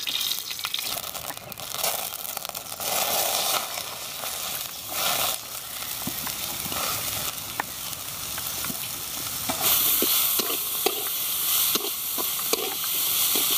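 Chopped onions sizzling in hot sunflower oil in a kadai, the frying getting louder as they go in during the first few seconds. In the second half a metal spatula stirs them, scraping and clicking against the pan.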